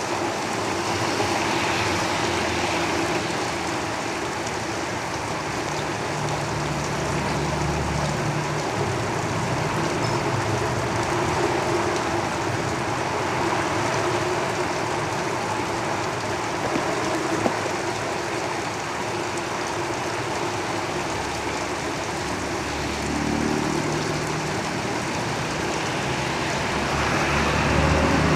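Steady heavy rain falling on a tin roof, with road vehicles rumbling past: a low engine hum swells a couple of times, most strongly near the end.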